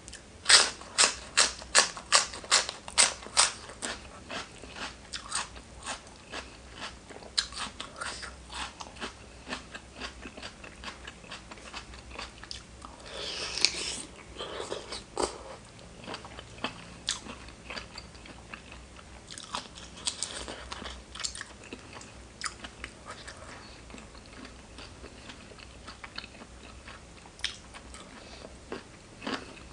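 A person eating crunchy food loudly and close to the microphone. It opens with a quick run of sharp crunching bites, about three a second, then settles into softer chewing with scattered crunches and a couple of longer smacking, rustling stretches around the middle.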